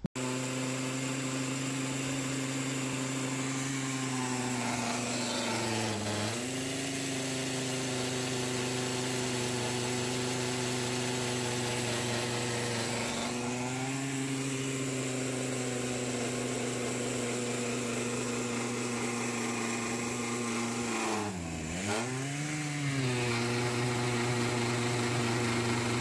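A Stihl MS880 two-stroke chainsaw with a 64-inch bar, mounted in a chainsaw mill, runs under load as it rips a slab through an oak trunk. The engine note holds steady but sags and recovers several times as the cut loads it, most deeply twice in a row a little past 20 seconds in.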